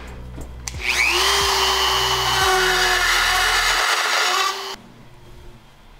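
Handheld rotary tool spinning up and grinding on a steel bar-stool swivel plate, a steady high whine over a harsh grinding hiss, widening a bolt hole so it lines up; it cuts off suddenly near the end.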